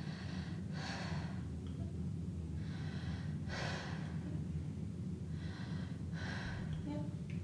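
A young woman breathing deeply in and out through her mouth for a stethoscope check of her lungs: three breaths, each a short rushing inhale followed by an exhale, over a steady low hum.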